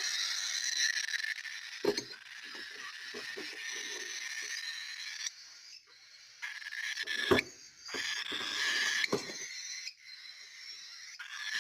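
Baby cockatiel giving a continuous raspy, hissing food-begging cry, pausing briefly twice. Several sharp knocks and clinks, about two seconds in, after seven seconds and after nine, as the bird's nest enclosure is handled and set down.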